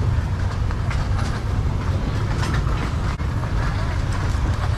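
Steady low rumble of street traffic, with scattered faint clicks and clatter.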